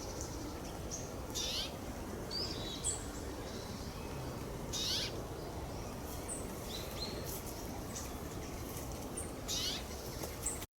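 Wild birds calling: three harsh, downslurred calls a few seconds apart, with thin high chirps between them, over a steady outdoor hiss.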